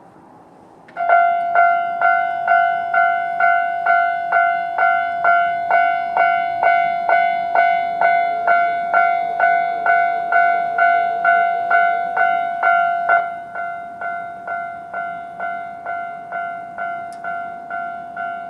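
Japanese railway level-crossing alarm starting up about a second in: a ringing electronic bell tone struck evenly, a little over twice a second. About 13 s in it drops to a lower volume and keeps ringing.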